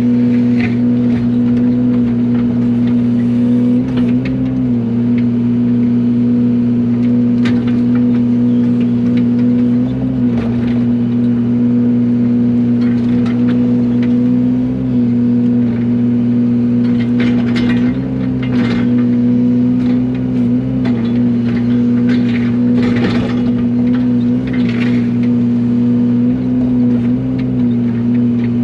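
Yanmar mini excavator's diesel engine running steady at working throttle, its note dipping briefly several times as the hydraulics take load. Over it come intermittent scrapes and clunks from the tilt grading bucket digging packed soil.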